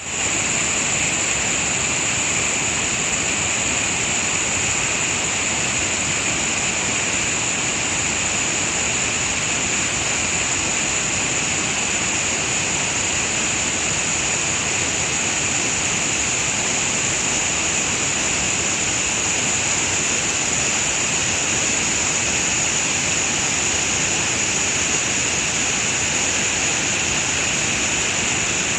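Steady loud rushing of a large waterfall: the Mekong pouring over the rapids of Tat Somphamit, with no breaks or changes.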